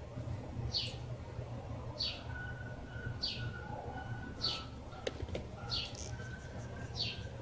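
A bird repeating a single short, falling chirp about once every second and a quarter, over a steady low hum, with a couple of faint clicks about five seconds in.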